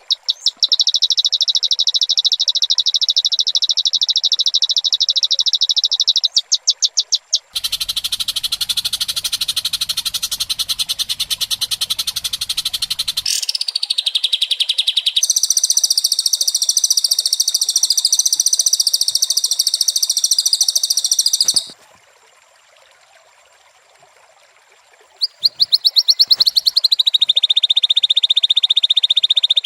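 Recorded lure track of rapid, buzzing trills, long runs of fast, evenly pulsed high notes, played to set off a white-rumped shama's song. A harsher, fuller stretch comes about eight seconds in and a higher-pitched run follows. There is a lull of a few seconds past the twenty-second mark before the trills start again.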